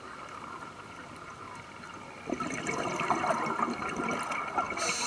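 Scuba diver breathing through a regulator underwater: a quieter stretch, then exhaled bubbles from a little past two seconds in for about two and a half seconds, and the hiss of the next inhalation through the regulator starting near the end.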